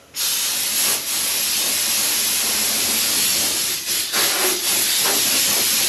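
Compressed air blowing from an air line in a loud, steady hiss, with a few brief breaks.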